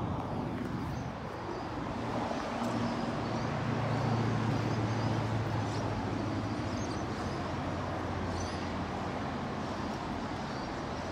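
Steady background ambience: an even hiss with a low hum underneath and no distinct events.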